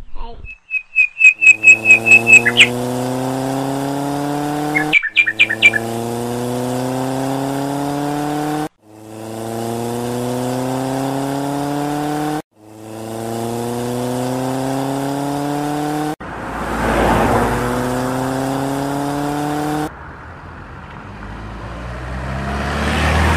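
Engine sound effect revving up, the same slow rise in pitch cutting off and starting over about five times. Quick high chirps run over the first few seconds. Near the end a noisy rumble swells up like a vehicle approaching.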